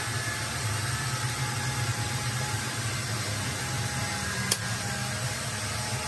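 A steady machine hum with a low drone, and a single sharp click about four and a half seconds in.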